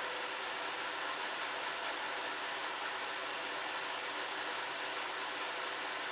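Small 12-volt fan of a homemade welding fume extractor running steadily, a constant rush of air drawn through its pipe with a faint hum under it.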